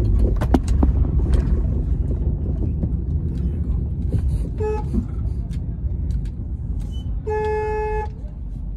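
Street traffic rumble with a vehicle horn: a short toot about halfway through, then a longer single-pitched honk near the end.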